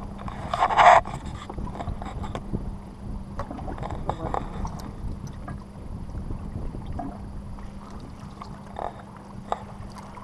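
Wind on the microphone and water moving against the side of a small fishing boat, with a faint steady hum underneath and scattered small knocks. A brief louder sound stands out about a second in.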